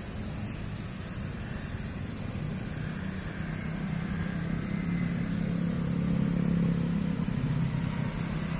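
Road traffic passing: cars and motorcycles driving by, their engines and tyres giving a steady low drone that grows louder past the middle as vehicles pass close, then eases a little near the end.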